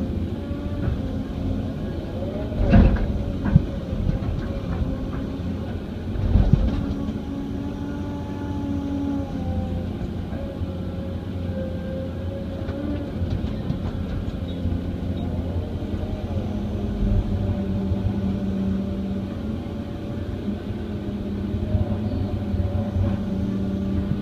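Hydraulic excavator's diesel engine running under load, its pitch rising and falling as the hydraulics work while it digs and loads clay into a scraper pan. Two heavy thumps come about three and six and a half seconds in, with a sharp knock between them.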